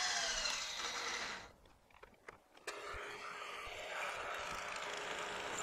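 Mill-drill running as a twist drill bores a hole in steel. The machine noise cuts out about a second and a half in, then returns about a second later as a steady hum with a hiss.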